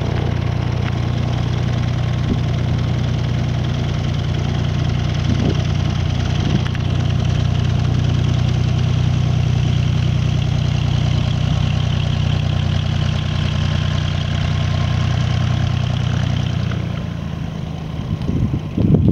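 Cessna 172S's four-cylinder Lycoming engine and propeller droning steadily in flight. The drone drops away about seventeen seconds in, and wind buffets the microphone near the end.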